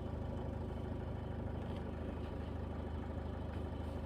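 Toyota Etios engine idling steadily.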